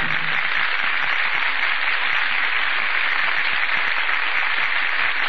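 Studio audience applauding steadily at the close of the play, heard through the narrow, muffled sound of a 1940 radio broadcast recording.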